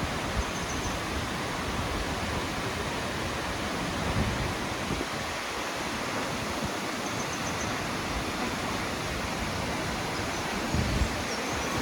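Nachi Falls, a tall single-drop waterfall, giving off a steady, even roar of falling water.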